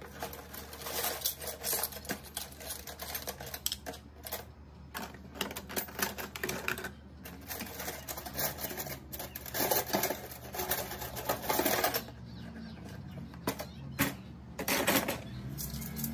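Kitchenware being handled: rapid, irregular clicking and clattering in bursts, loudest in the middle and again near the end, with a short pause about twelve seconds in.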